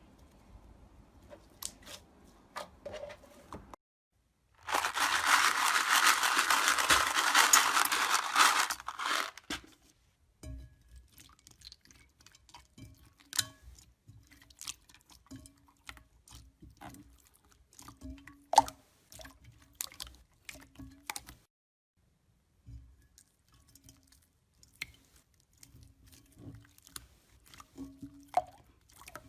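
Crunchy slime being pressed and crushed by hand, a dense crackling that starts about five seconds in and lasts about five seconds. It is followed by scattered small clicks and soft pops as the slime is poked and stretched.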